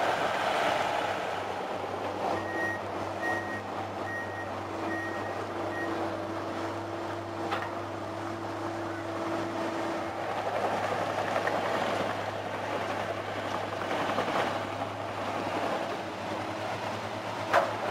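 Diesel engines of a crawler bulldozer and a Komatsu hydraulic excavator running steadily, with a reversing alarm beeping about twice a second for a few seconds early on. A single sharp knock near the end.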